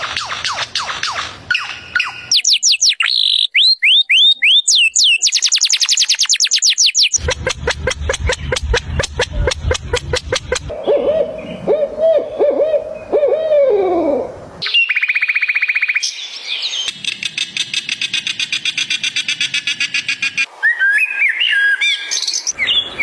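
A string of different animal calls, mostly bird-like whistles, chirps, trills and rapid rattling pulses, each cut short and followed at once by another every few seconds.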